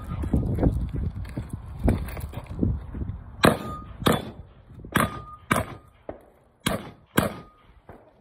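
Gunshots from a competitor firing at targets down the range: about six sharp reports in rough pairs from about three and a half seconds in, several followed by a short ring, typical of steel targets being hit.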